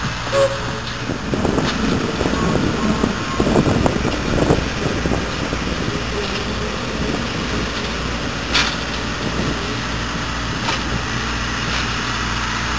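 Steam excursion train's passenger cars rolling past on the track, with rumble and a burst of irregular wheel-and-rail clatter early on that fades to a steady rumble. Two sharp clicks come in the second half.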